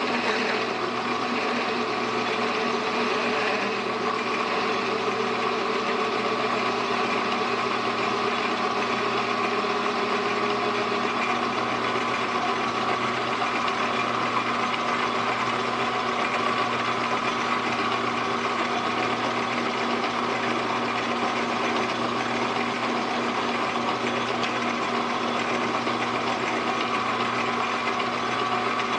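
Metal lathe running steadily with a constant gear whine while a parting tool cuts into a spinning brass piece; a middle tone in the sound fades out about ten seconds in.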